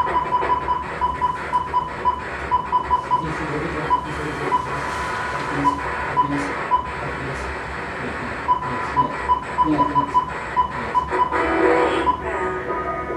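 Radio static as a radio is switched on and tuned between stations: a steady hiss and hum with irregular short beeps at one pitch and scattered clicks.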